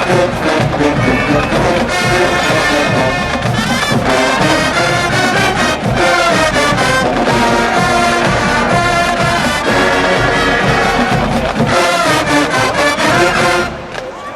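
HBCU marching band playing a loud brass-led number over a drumline, with the horns in full swing; the music cuts off suddenly near the end.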